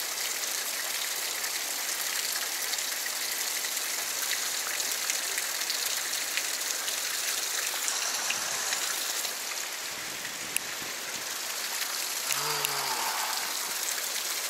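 Stream water rushing and splashing over rock ledges, a steady hiss. Near the end there is a brief low voice-like sound.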